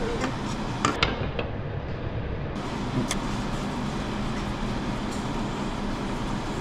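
Steady restaurant background noise, a continuous hum and rush of ventilation, with a few light clicks of tableware on the table about one second in and again about three seconds in.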